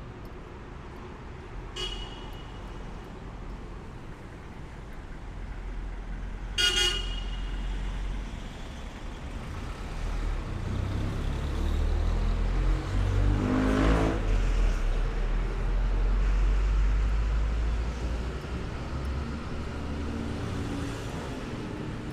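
Street traffic: a vehicle horn toots briefly about two seconds in and again, louder, near seven seconds. A vehicle then passes close, its engine loudest about halfway through, over a steady low rumble of traffic.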